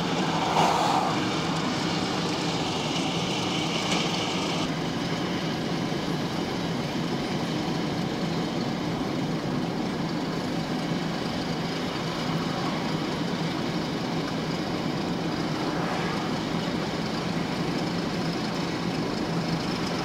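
Steady road, tyre and engine noise of a car cruising at highway speed, heard inside the cabin, with extra hiss in roughly the first four or five seconds.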